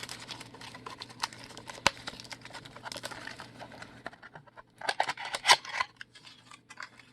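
A trading-card pack being handled and opened: small clicks and rustles of the wrapper and cards, with a louder rustle of the wrapper about five seconds in.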